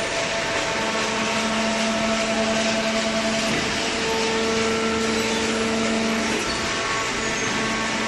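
Paper baler machinery running: a loud, steady mechanical noise with a hum whose pitch shifts twice, about three and a half and six seconds in.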